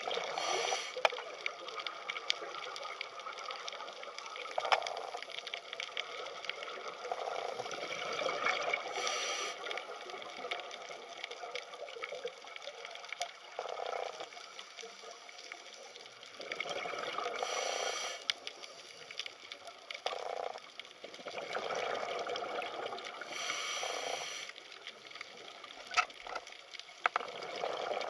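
Underwater sound on a reef dive: a steady watery rush with many scattered sharp clicks. Every six to nine seconds comes a louder hissing surge of bubbling, the diver breathing through a scuba regulator and exhaling.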